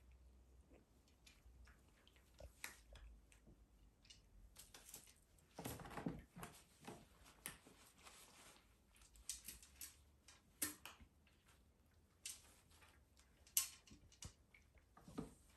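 Faint, irregular scuffs, scratches and small taps of kittens playing, their paws and claws on tile, a plush rug and a carpeted cat tree. There is a longer rustle about six seconds in and one sharper tap near the end.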